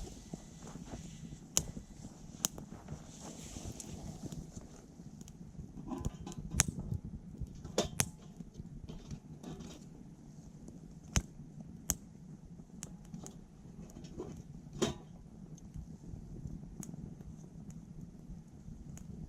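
Wood fire burning in a small titanium wood stove, crackling with sharp, irregular pops from the burning wood, the loudest about six and eight seconds in, over a low steady rumble.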